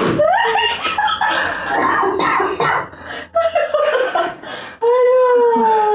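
Men laughing hard and loudly, with a sharp smack right at the start and a long, high-pitched held squeal of laughter about a second before the end.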